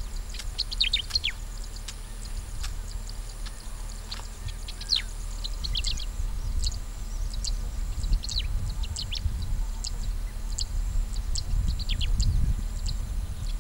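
Birds chirping: many short, quick, high calls scattered throughout, over a low, uneven rumble.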